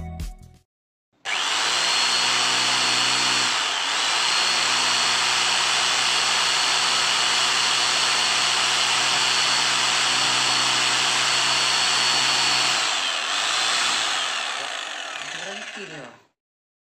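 Bitec HBM-50 electric demolition hammer starting about a second in and running steadily at speed, with a brief dip and recovery a few seconds later. Near the end it is switched off and its motor winds down with a falling pitch.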